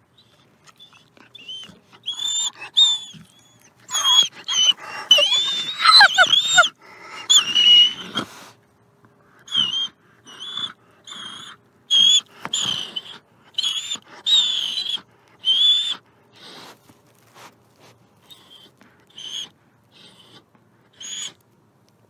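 A gray wolf whining and squeaking in a long series of short, high-pitched calls, with a denser, rougher stretch of overlapping whines and growling about four to seven seconds in. The calls tell a packmate standing over him to back off and give him space.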